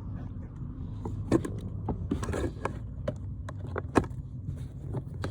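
Scattered clicks and knocks as a BMW 328i E90's blower motor is twisted clockwise and worked loose from its housing, the sharpest knock about four seconds in, over a low steady hum.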